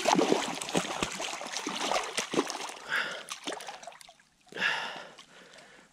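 A big brown trout thrashing and splashing at the surface in shallow water while being played on a line, a quick run of sharp splashes over the first couple of seconds that then thins out to a few separate splashes.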